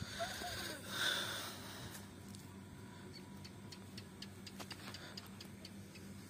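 A cast net rustling as it is set down and spread on the ground, loudest about a second in, followed by faint scattered clicks as the net is handled.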